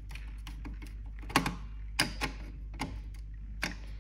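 Scattered sharp clicks and light taps, about half a dozen, as a multimeter test probe and its leads are handled against a variable frequency drive's plastic screw-terminal block.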